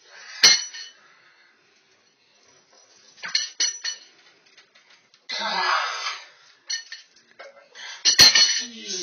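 Metal clanks and clinks from a loaded barbell in a steel bench-press rack: a sharp clank about half a second in and a louder one near the end as the bar meets the rack uprights, with the plates and hanging chain rattling between them. A second-long rushing noise sounds about halfway.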